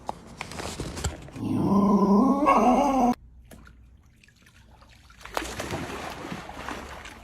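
A dog's drawn-out vocal sound, about a second and a half long, loud and pitched, that cuts off abruptly. After a short quiet gap comes a steady rushing noise.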